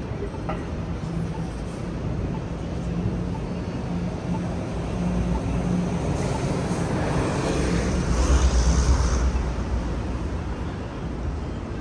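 City street traffic noise, with a steady low engine hum and a vehicle passing close by, loudest about eight seconds in.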